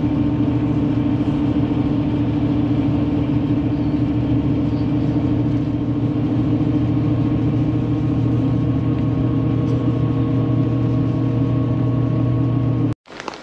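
Steady drone of a road vehicle cruising along a highway, heard from inside the cabin: a constant low engine hum over road noise. It cuts off suddenly near the end.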